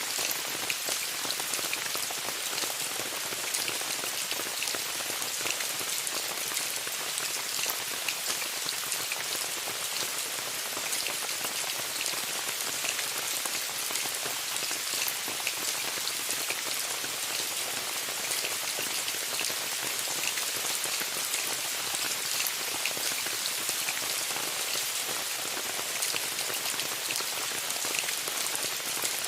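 Steady rain falling on a tent: an even hiss with many small, quick taps of individual drops.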